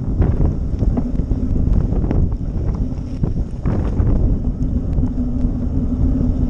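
Wind buffeting the microphone of a camera moving along a road, a dense low rumble with scattered small knocks. A steady low hum comes in about five seconds in.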